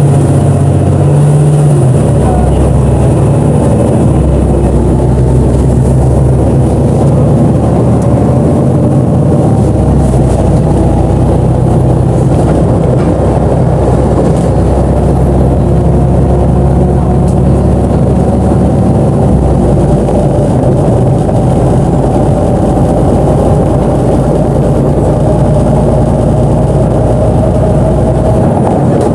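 BonLuck DD6181S32 articulated bus's engine running under way, a steady drone that shifts pitch a few times as engine speed changes, with a faint whine that rises slowly in the second half.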